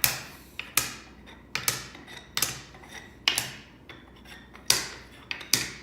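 Wooden beads clacking: about eight sharp, irregularly spaced knocks, each with a short ringing tail.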